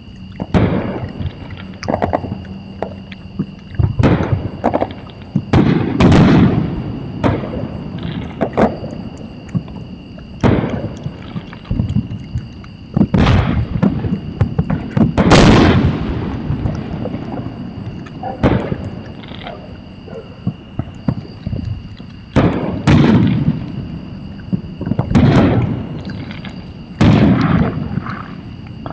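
Fireworks going off: an irregular string of sharp bangs and heavier booms, each with a short echoing tail, the biggest about six, fifteen and twenty-three seconds in. Two steady high-pitched tones run underneath.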